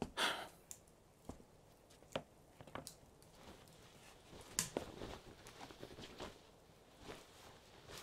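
A soft breathy sigh at the start, then scattered faint taps and rustles of people moving about: light footsteps and clothing.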